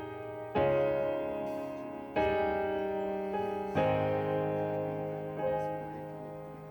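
Background piano music: slow, sustained chords struck about every second and a half, each left to ring and fade.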